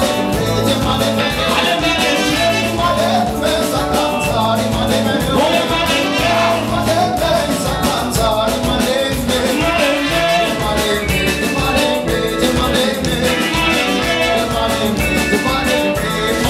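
Live band playing upbeat dance music with a steady, driving bass, singing, trumpet and tambourine.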